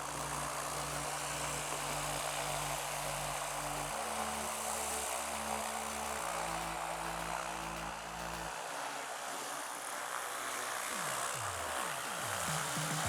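Wind buffeting the microphone in a steady rushing hiss, under background music with a low bass line that changes note every couple of seconds.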